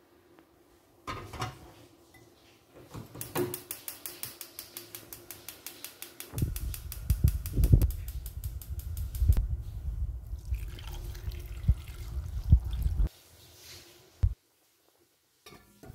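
A ceramic bowl set down with a knock into a steel pot. Then a gas hob's electric igniter clicks rapidly, about eight times a second, for about three seconds until the burner catches. A low rumble of the gas flame follows and stops about three seconds before the end.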